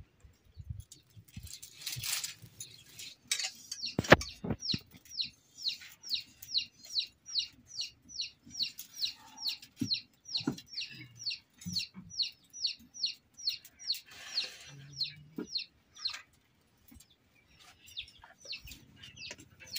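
A small bird chirping a rapid run of short, high, falling notes, about three a second, for some ten seconds. A single sharp crack about four seconds in is the loudest sound.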